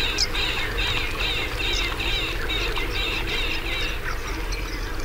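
Birds calling in a wetland chorus: a steady run of short, repeated calls, with a few higher chirps right at the start.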